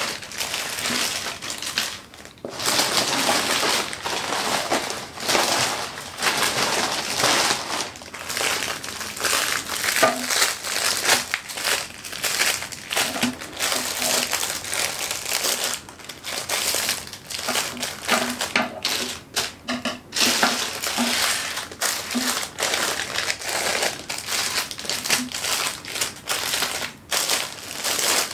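Clear plastic zip-lock bags of diamond painting drills crinkling as they are picked up, shuffled and laid down by hand, in close rustles with short pauses between.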